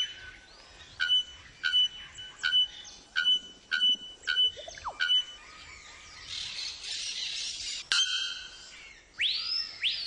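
Bare-throated bellbird calling, said to be the loudest of all birds: a series of about seven short, loud notes, each a clear ringing tone, spaced roughly half a second to a second apart. Near the end a loud whistle rises and then falls, the start of a screaming piha's call.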